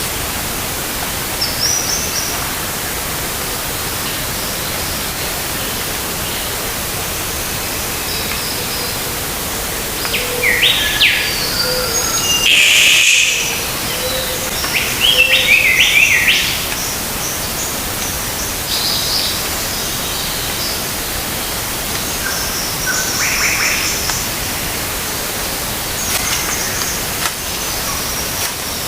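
Birds calling in short, quick chirping phrases, busiest and loudest in the middle, over a steady hiss of outdoor ambience.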